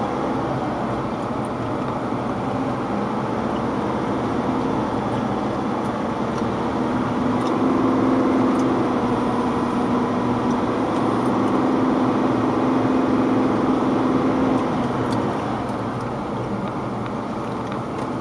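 A vehicle's engine running, heard from inside the cabin while driving, with rain on the windscreen. About seven seconds in, the engine note grows louder and holds a steady, higher hum for roughly seven seconds, then drops back.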